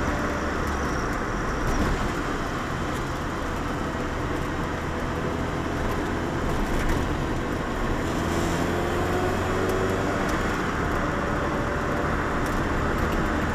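Lotus Elise's engine and tyre noise heard from inside the cabin while driving, a steady sound whose engine pitch rises about eight seconds in as the car accelerates.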